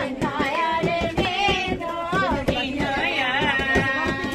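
Village wedding folk music: a woman's voice singing a wavering, ornamented melody with vibrato over a rhythmic beat, holding one long note near the end.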